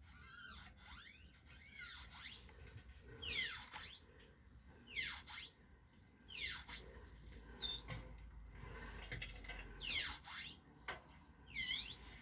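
Short, high squeaks from the Hoover Softwave Autowasher A0113 as it is handled, repeating about every one to two seconds, each dipping in pitch and rising again.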